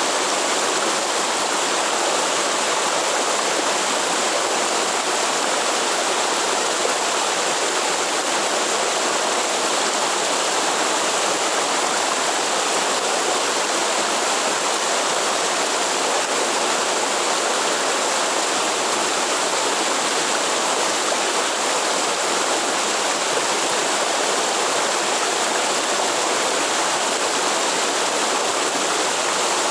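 Waterfall in a forest stream: water falling and rushing over rocks in a steady, unbroken roar.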